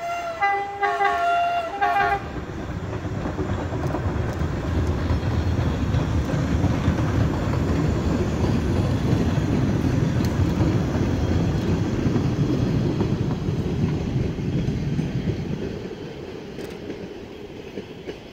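Horn of a Boston MBTA 01400-series Red Line subway car sounding a few short blasts, then the train rumbling past on the track, loudest midway and fading away near the end.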